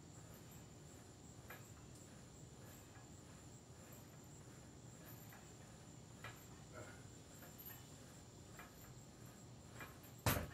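Home gym cable machine's weight stack landing with a sharp metal clank near the end as the row handle is lowered. Before that, only faint scattered clicks from the cable and a faint steady high-pitched tone.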